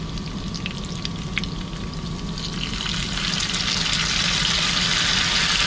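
Preserved pork intestine stir-frying in a hot wok, with a few sharp spatula clicks over a steady sizzle and a low hum. About three seconds in, the sizzling hiss grows louder and stays up.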